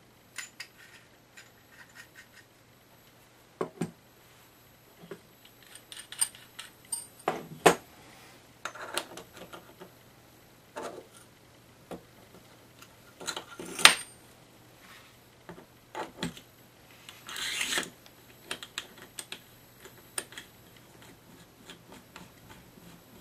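Small brass plumbing fittings being handled on a copper pipe while a radiator valve is fitted: irregular metallic clicks, clinks and taps, the sharpest about two-thirds of the way through, with a brief scraping rub shortly after it.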